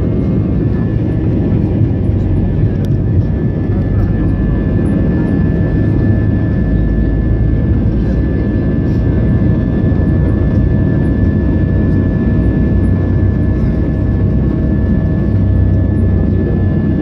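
Steady drone of an airliner in flight, heard from inside the passenger cabin: deep engine and airflow rumble with a thin, constant whine over it.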